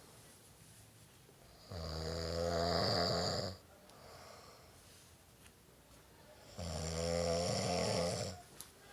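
A man snoring: two long, loud snores about five seconds apart, each under two seconds long, with quiet breathing in between.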